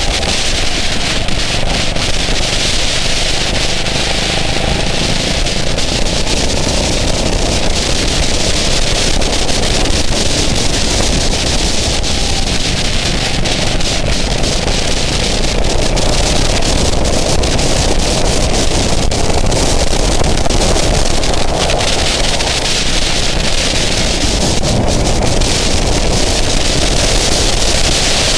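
Go-kart engine running at speed through a lap, largely buried under heavy wind noise on the onboard microphone.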